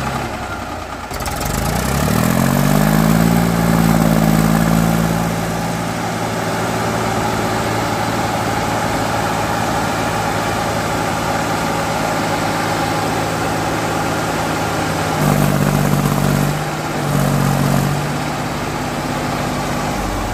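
Mahindra 265 DI tractor's three-cylinder diesel engine revving up about two seconds in and held at high revs, then revved harder twice near the end, as it works to pull a loaded trolley stuck in mud.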